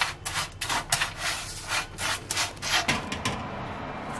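A spatula scraping and stirring a loose mix of oats, nuts and seeds on a paper-lined baking tray, in quick scraping strokes about four a second. About three seconds in the strokes stop and only a quieter rustle is left.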